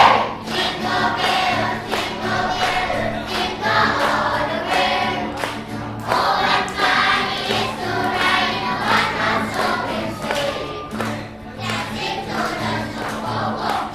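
Children's choir singing.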